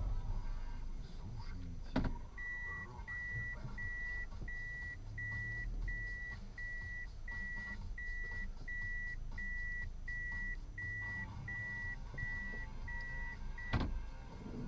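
An electronic warning beeper in a car cabin sounds a steady train of short, identical beeps at one high pitch, about one and a half a second, over the low rumble of the car. A sharp click comes just before the beeping starts, and another just as it stops.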